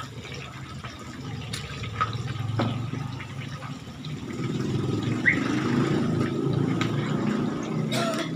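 Pork pieces deep-frying in hot oil: a steady bubbling sizzle with a few sharp pops, growing louder about four seconds in.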